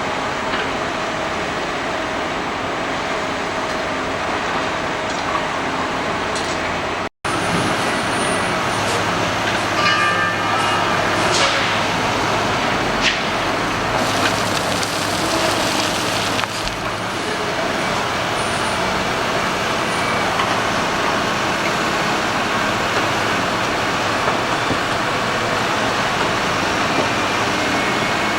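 Heavy construction machinery running: steady engine and mechanical noise, broken off for an instant about seven seconds in by an edit cut. Short high squeaks and a few knocks come through around ten seconds in.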